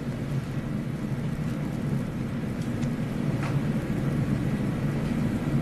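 Steady low rumble of room background noise in a pause between speakers, with a faint brief rustle about three and a half seconds in.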